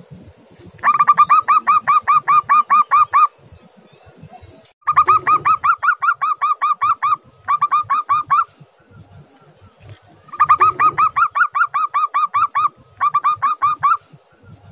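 Zebra dove (perkutut) calling in runs of rapid, evenly repeated staccato notes, about five a second, five runs with short pauses between them.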